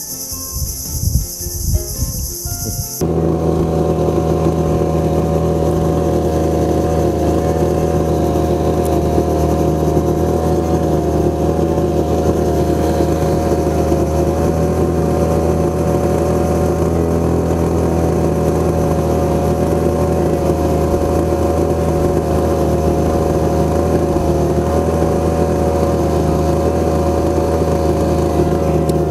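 Crickets chirring for the first few seconds, then an abrupt cut to a boat engine running steadily with a slight wavering in pitch.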